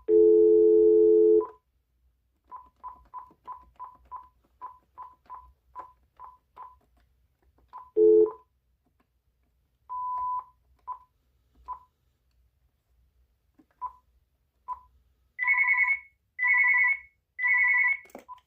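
Uniden TRU9488 cordless phone beeping as its keys are pressed. There is a long low tone at the start, then a run of short key beeps at about three a second, a second low tone, a longer beep and a few single beeps. Near the end come three short ringing bursts, the intercom page between handset and base.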